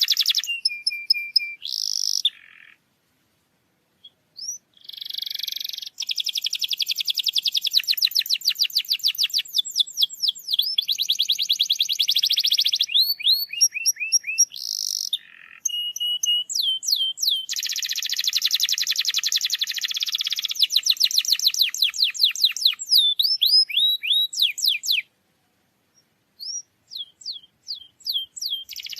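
Domestic canary singing: long runs of rapid trills and rolls mixed with high, downward-sliding whistled notes. The song breaks off for a pause of about two seconds a few seconds in and again near the end.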